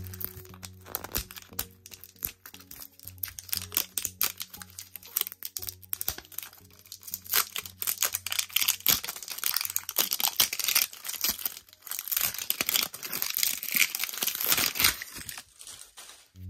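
Crinkly plastic wrapper being peeled and torn off an LOL Surprise Queens toy ball, crackling busily and growing louder in the second half before stopping just before the end. Soft background music plays underneath.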